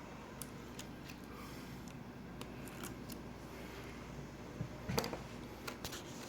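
Faint scattered clicks and light taps from small parts, tools and adhesive film being handled, over a steady low room hum; the clearest click comes about five seconds in.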